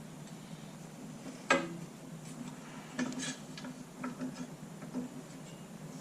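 Metal-on-metal clinks and knocks from an arbor press and the steel piece being bent in it: one sharp clank about one and a half seconds in, then several lighter clicks.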